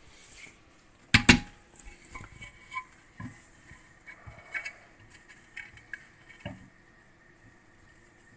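Metal parts clinking and knocking inside an opened manual gearbox casing as a hand works at a bearing race. There is a loud double knock about a second in, then light scattered taps that die away after about six and a half seconds.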